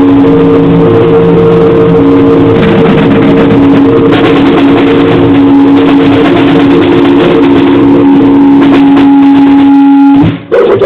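Harsh, heavily distorted noise music: a dense wall of clipped noise with two steady held tones droning underneath, which cuts out abruptly about ten seconds in and then crashes back.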